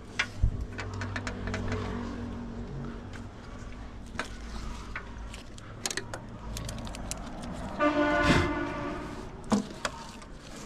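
Clicks and knocks of hands handling a metal street cabinet door, a tape roll and a pen. A low rumble runs through the first few seconds, and about eight seconds in comes a short pitched tone, the loudest sound.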